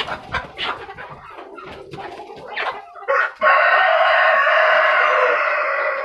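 Chickens clucking, with some short knocks and rustles. About three and a half seconds in, a rooster crows once: one loud, long crow of about two and a half seconds that tails off at the end.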